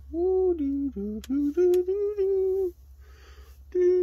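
A man humming a short wordless tune in a few held notes that step up and down, breaking off about two-thirds of the way through and starting again near the end. One sharp click about a second in.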